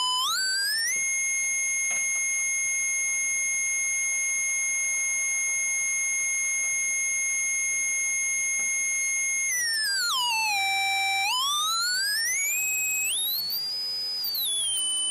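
Electronic test tone with overtones above it, the signal being fed into a graphic audio spectrum analyzer. It glides up in pitch in the first second and holds steady, then about ten seconds in sweeps down low, climbs to a high pitch around fourteen seconds, and falls back to the held pitch near the end.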